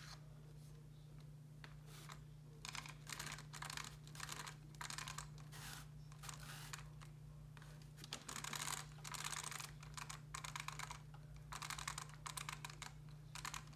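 Small RC car being handled and turned over in the hands: quick bursts of clicking and rattling from its plastic parts, starting about three seconds in and coming in groups with short pauses, over a faint steady hum.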